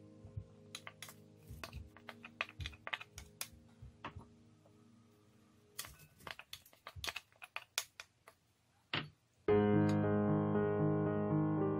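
Chopped vegetables being tipped and scraped into a glass mixing bowl: a run of light clicks and taps over faint music. About three-quarters of the way through, louder background music starts suddenly.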